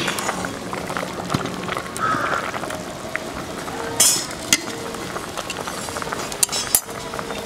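Curry simmering and bubbling in a metal pot over a wood fire, with scattered small crackles. A sharp metal clink about four seconds in and a few more near the end as the pot's wire handles are gripped and let go.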